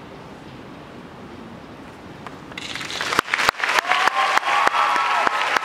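A quiet stretch of faint low sound as the dance piece's music dies away, then the audience breaks into applause about two and a half seconds in, growing loud with dense, sharp claps.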